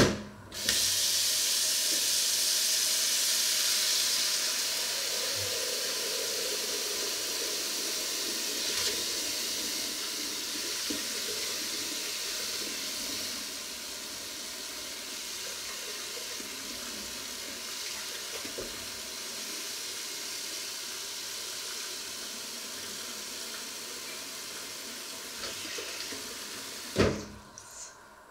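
Kitchen tap running into a stainless steel pot in the sink, filling it with water. The flow is loudest at first and drops lower about halfway through, then stops shortly before the end, followed by a couple of knocks.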